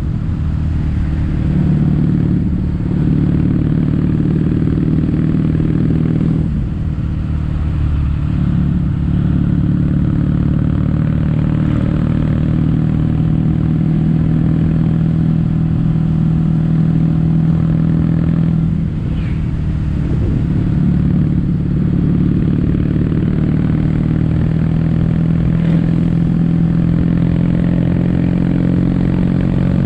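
Kawasaki W800 parallel-twin engine running through Yamato stainless-steel caberton-style silencers under way. The exhaust note is steady, easing off briefly about 7 seconds and 19 seconds in.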